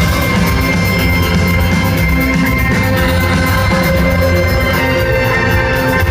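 Rock band playing live, an instrumental passage with drums and guitar over a steady bass, loud and continuous.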